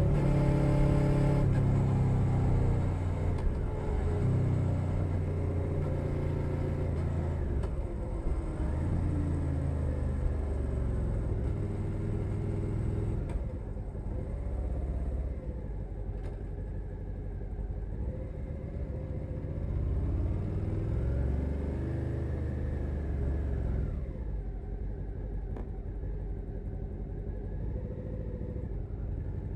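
Suzuki SV650's V-twin engine through a LeoVince Nero exhaust, picked up close from under the seat, running on the road. Its pitch rises and falls with throttle changes. It is louder at first, then lower and quieter from about halfway through.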